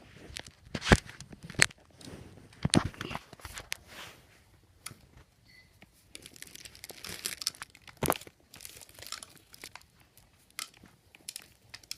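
Knife and hands working a cut-open Hyper Toss ball and its small pebble-like filling: crinkling and tearing with scattered sharp clicks, and a stretch of dense rustling about two-thirds of the way through.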